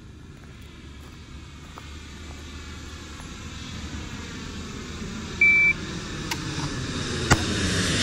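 A short, loud electronic beep about five and a half seconds in, of the kind a shot timer gives as the start signal for a draw. Under it an engine drone grows steadily louder, and a sharp click follows near the end.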